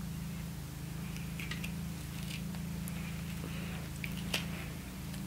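Faint crackles and small snaps of a jalapeño pepper being torn open by hand as its stem and seeds are picked out, with one sharper click about four seconds in, over a steady low hum.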